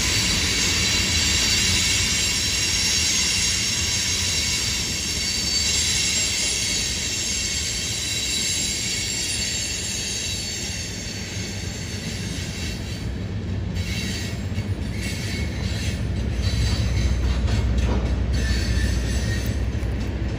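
Freight train tank cars rolling past on the rails, the steel wheels squealing with high, steady tones over a rolling rumble. The squeal fades about two-thirds of the way through, and the low rumble grows louder near the end.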